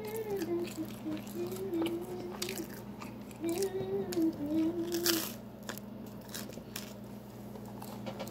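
A person chewing pizza, with irregular mouth clicks and smacks.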